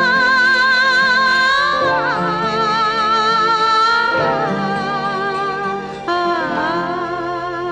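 Background music: a long, wavering melody line with held notes over a lower accompaniment. The melody shifts to new notes about two seconds in and again near the end.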